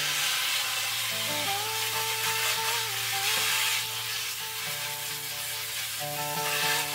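Water from a garden hose spray nozzle hissing as the jet washes elephant garlic bulbs in a metal tub of water. Background music with long held notes plays along with it.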